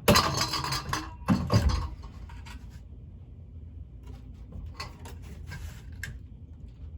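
Scraping and rubbing of objects being handled, in two loud bouts in the first two seconds, then a few faint clicks.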